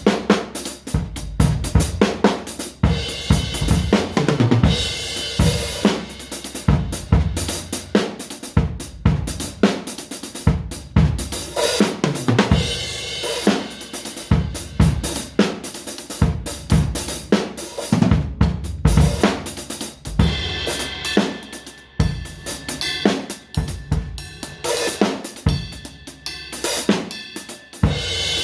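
Drum kit played in a loose, busy improvisation: rapid snare and bass drum hits with hi-hat and ringing cymbals.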